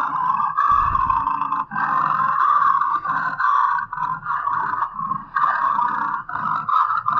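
Custom-made Godzilla roar sound effects: a string of loud monster roars, each a second or two long with short breaks between them, and a brief low rumble about a second in.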